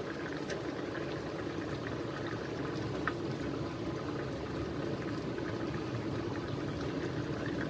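Pot of fish broth with yellow spice paste boiling on the stove: a steady bubbling with a few small pops.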